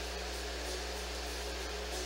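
Steady mechanical hum and hiss, with a few steady low tones running through it.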